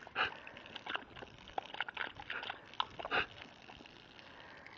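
A dog's faint, irregular huffs and snuffles: a handful of short breathy sounds, with no yipping or barking.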